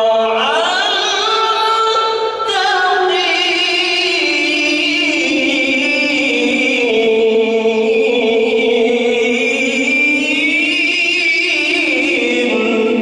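A man's solo voice singing a slow, ornamented devotional melody into a microphone, holding long notes with a wavering vibrato and sliding between pitches.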